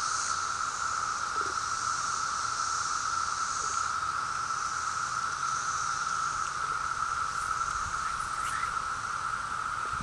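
Chorus of Brood V periodical cicadas: a steady, dense drone holding one pitch, with a fainter, higher hiss above it that swells and fades.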